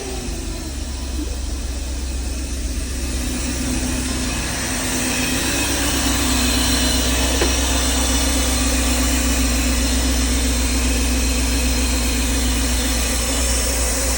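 Mercedes-Benz 500SL's 5.0-litre V8 idling steadily, growing slightly louder over the first few seconds and then holding even. It is the smooth idle of an engine whose failed overvoltage protection (OVP) relay has just been replaced.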